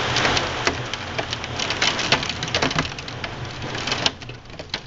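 Hail and rain pelting down, with a dense patter of sharp clicks from hailstones striking hard surfaces over a steady hiss. The clicks thin out and the hiss drops about four seconds in.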